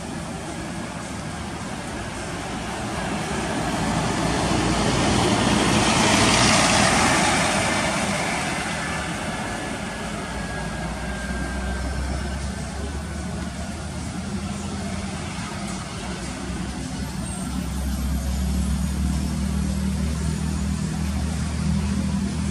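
Scania K410IB six-by-two coach drives past close: its diesel engine and tyres swell to a peak about six seconds in, then fade as it pulls away, with a faint whine falling in pitch. After that a steady low diesel engine drone from buses in the terminal, louder again near the end.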